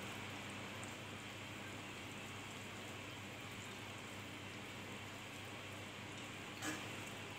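Faint steady sizzling of par-boiled rice cooking in melted sugar syrup in a pot on a low flame, with one soft knock about two-thirds of the way in.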